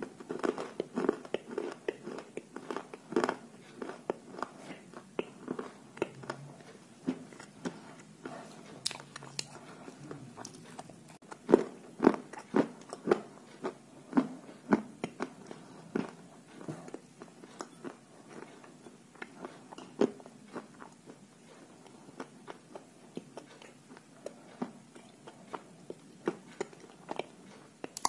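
Pieces of dry white chalk being bitten and chewed: a run of sharp, irregular crunches, with the loudest bites about a dozen seconds in.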